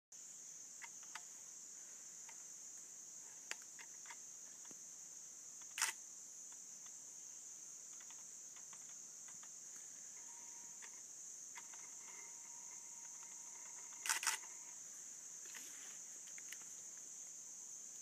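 Steady high-pitched drone of forest insects, with a few sharp clicks, the loudest about six seconds in and a quick cluster of them around fourteen seconds.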